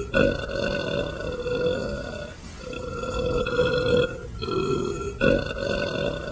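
A man belching a string of long, drawn-out burps, about four in a row, each held at a steady pitch for a second or more with only short breaks between them.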